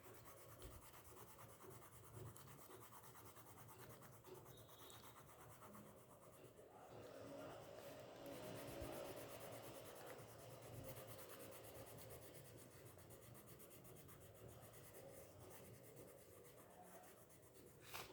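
Faint, steady scratching of oil pastels rubbed back and forth across paper, colouring in an area with many quick strokes.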